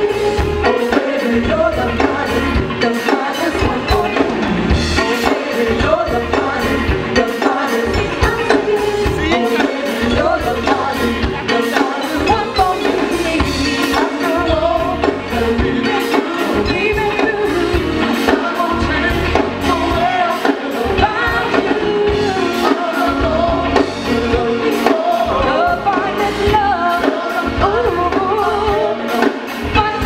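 A live band playing a song with a woman singing lead: drum kit keeping a steady beat, with bass guitar, keyboard and congas.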